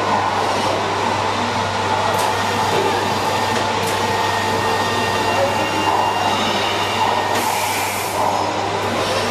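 Robotic welding cell at work: a steady, loud mix of noise and a constant electrical hum, with a couple of sharp clicks and a brief brighter hiss near the end.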